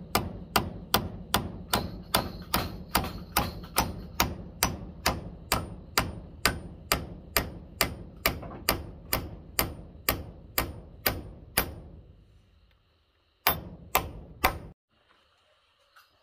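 Steady, evenly paced blows, about two and a half a second for some twelve seconds, then a short pause and three more blows.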